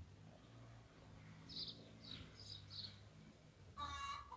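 Faint outdoor birdsong: small birds chirping a few short times, then a brief louder call near the end, over a faint low hum.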